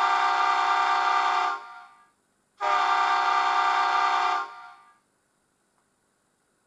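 Soundtraxx Tsunami sound decoder in an H0 model diesel locomotive sounding a multi-chime diesel horn through a small 28 mm round speaker in a baffle: two blasts of about two seconds each, each trailing off briefly.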